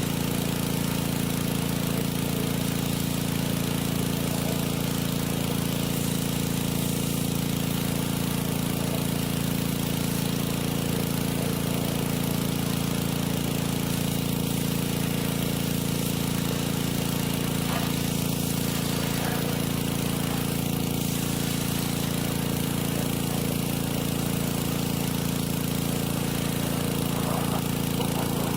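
Small gasoline engine of a pressure washer running steadily at a constant speed.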